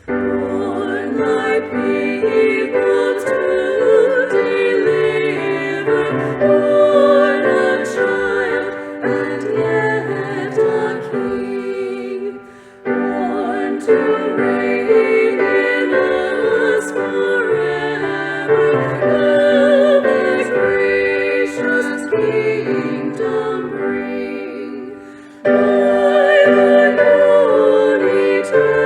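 Women's vocal trio singing a sacred Christmas song with vibrato to piano accompaniment, in long phrases with two short breaks.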